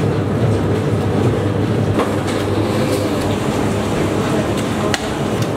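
Gas stove burner burning with a steady, loud rush under an idli steamer, with a couple of sharp metal clicks from utensils, one about two seconds in and one near the end.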